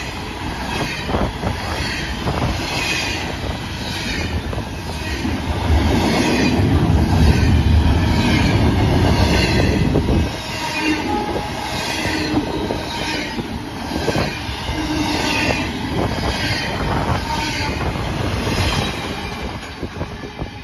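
Norfolk Southern double-stack intermodal train rolling past at track level: steady wheel-on-rail rumble and clatter with high-pitched wheel squeal pulsing about every two-thirds of a second. The low rumble is heaviest about six to ten seconds in, and the sound drops off near the end as the last cars go by.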